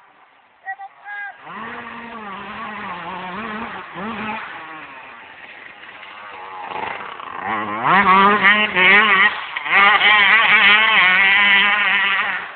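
Yamaha YZ125 two-stroke dirt bike riding a dirt track, the engine pitch rising and dropping with the throttle and gear changes. It comes in about a second and a half in, grows much louder from about eight seconds in as the bike passes close, then drops away suddenly near the end.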